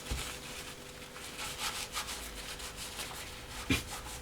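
Rapid rubbing strokes of a wipe over the Big Muff pedal's front panel, cleaning dirt off with foam cleaner, with a small knock near the end.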